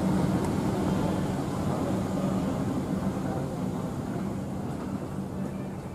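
Low rumble and steady hum of a train in an underground railway station, fading gradually as it moves away.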